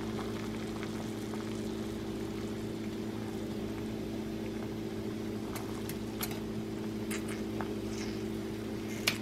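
A pot of potatoes at a steady boil, heard as a continuous low hum, with a few light clicks in the second half as a wooden skewer is poked into the potatoes and against the metal steamer basket to test whether they are soft; the sharpest click comes just before the end.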